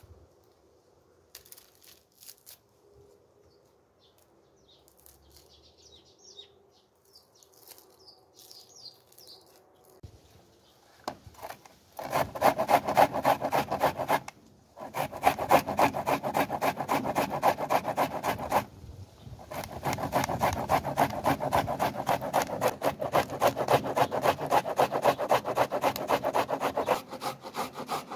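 Food being grated on a flat stainless-steel hand grater: rapid, even rasping strokes that start a little before halfway and run on with two short pauses. Before the grating there are only a few faint clicks.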